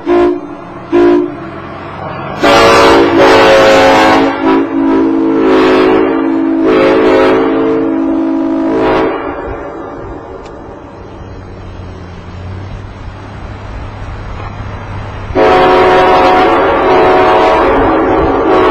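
Locomotive air horns blowing multi-tone chords: two short toots, then a long blast of about seven seconds with brief dips. After a lull with a low hum, another long blast starts about three seconds before the end.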